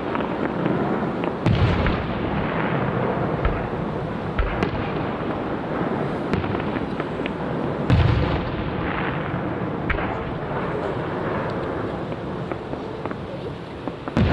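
Aerial firework shells bursting, with a dense crackle and many sharp pops throughout and heavy booms about a second and a half in and again about eight seconds in.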